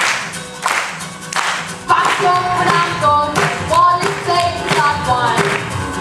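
Steady rhythmic handclaps, about one every three-quarters of a second, over sparse singing; about two seconds in, a full jazz tune with voice and instruments comes in and carries on.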